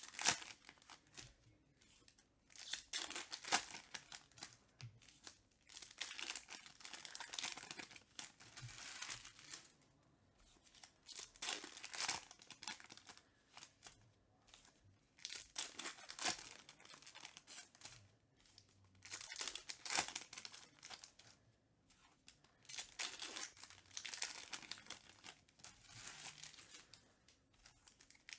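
Trading card pack wrappers being torn open and crinkled by hand, in repeated short rustling bursts with brief pauses between.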